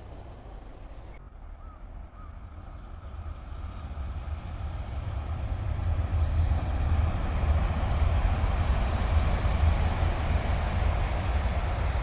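Train on the Sanyo Main Line approaching and passing: a rumbling noise that grows louder over the first half and stays loud.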